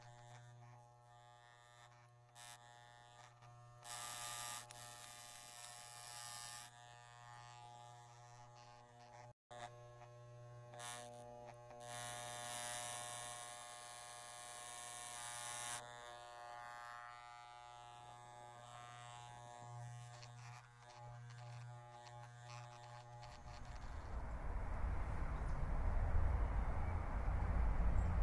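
Electric hair clippers buzzing steadily, growing louder for a few seconds twice. Near the end a low rumble of wind on the microphone comes in and swells.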